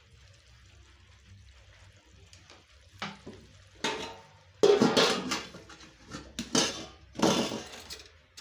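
Aluminium cooking pot and metal charcoal stove clattering as the pot is lifted off the stove: a couple of knocks about three seconds in, then loud ringing metal bangs and scrapes, the loudest just before the end.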